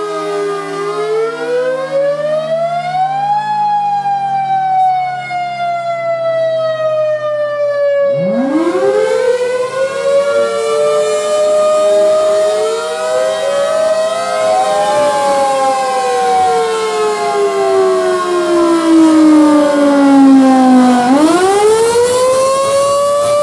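Several outdoor warning sirens (a Thunderbolt 1000B, Federal Signal 2001-130DC, Modulator 6048 and Model 2T) sounding a wail together, their pitches rising and falling out of step. About eight seconds in, another siren joins, climbing from a low growl with a rush of air noise; near the end one pitch falls low and then climbs again.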